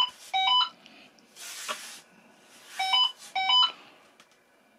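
Pairs of short, high chirping beeps, each pair made of two notes with the second stepping up in pitch, repeating about every three seconds. Between them there is a brief rustle of the foam model wing being handled.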